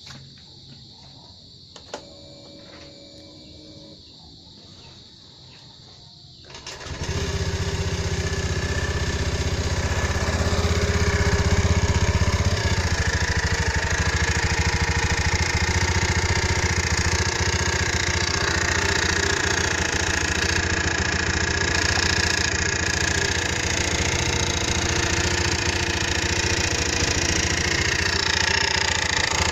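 Honda Click150i scooter's single-cylinder engine starting about seven seconds in, after a quiet spell with a click, then running steadily at idle, a little louder for a few seconds after it catches, with the whirring sound the owner wants to show.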